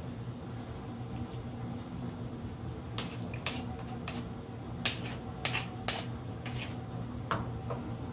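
Wooden spatulas stirring and tossing cooked pasta in a non-stick frying pan: scattered light clicks and taps of wood on the pan, bunched mostly in the middle of the stretch.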